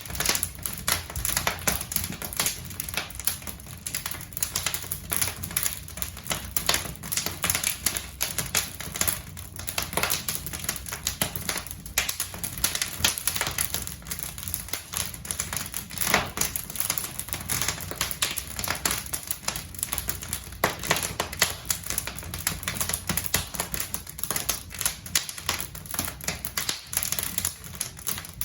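Logs burning in a fireplace, crackling and popping: a dense, irregular run of sharp snaps throughout.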